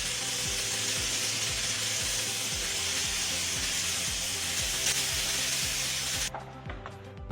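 Steady hissing noise with faint music and a regular low beat underneath; the hiss cuts off about six seconds in.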